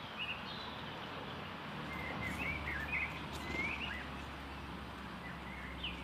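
Small songbirds chirping in short, quick notes: a couple near the start, a run of them through the middle, and one more near the end, over steady outdoor background noise with a low rumble.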